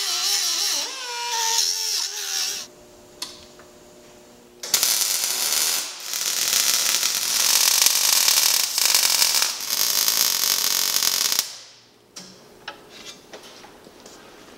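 A pneumatic grinder runs with its whine wavering in pitch under load for about two and a half seconds. After a pause, an arc welder crackles and hisses in three runs, welding a steel Panhard correction bracket onto the axle housing.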